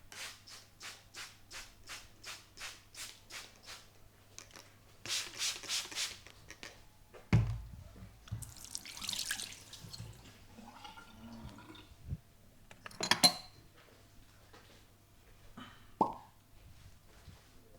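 Hands massaging a face slick with aloe vera gel. There is a run of about a dozen soft wet pats at about three a second, then four louder slaps, a thump, and a stretch of rubbing. A sharp click comes later and a shorter one near the end.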